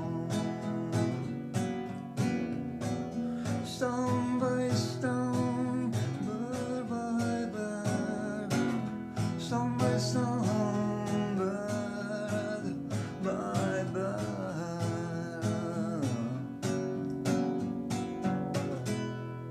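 Instrumental music: strummed acoustic guitar with a melody line over it, ending on a chord that rings out near the end.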